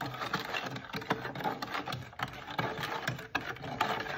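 Spoon stirring a thick washing-soda and water paste in a plastic jar, with quick irregular scraping and clicking against the jar's sides and bottom.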